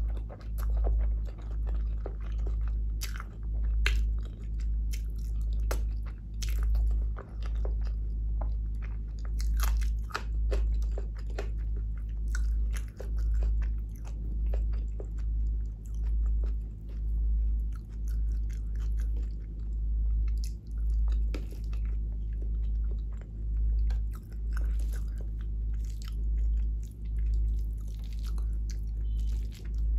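Close-miked chewing of a mouthful of vegetable biryani (rice with potato and cauliflower), one chew about every second, with many sharp mouth clicks and smacks in between.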